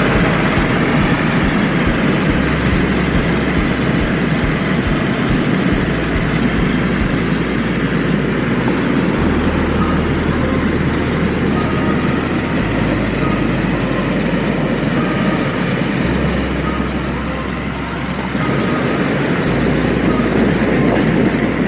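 Hot air balloon inflator fan, an engine-driven propeller, running steadily as it blows air into the envelope lying on the ground, dipping slightly about three-quarters through.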